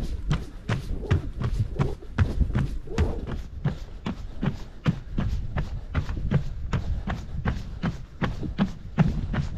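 Running footsteps on a boardwalk, an even run of thudding footfalls at about three a second.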